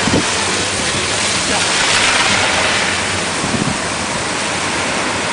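Steady rushing hiss of water spray from an Angus Fire OM80 oscillating fire monitor's jets, swelling slightly about two seconds in.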